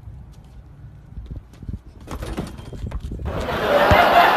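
A few scattered dull thumps and knocks, then laughter rising loudly about three seconds in.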